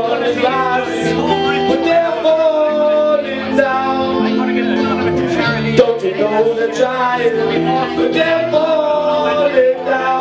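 Live band playing a song: a male singer's voice over strummed acoustic guitars with drums, the singing line holding and bending long notes.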